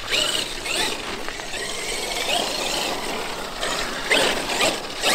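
Traxxas X-Maxx RC monster truck's brushless electric motor and drivetrain running as it drives across grass, a whine that rises and falls with the throttle over gear and tyre noise.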